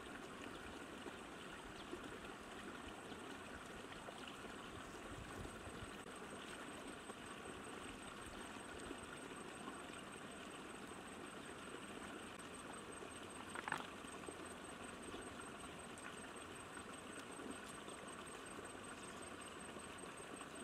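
Steady rushing of a shallow, rocky river flowing. A single brief, higher-pitched chirp-like sound stands out about two-thirds of the way through.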